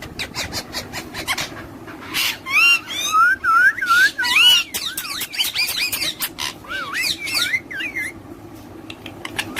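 Parrot whistling and chattering: a run of quick whistled notes that rise and fall, starting about two seconds in and fading out around eight seconds, with short clicks in between.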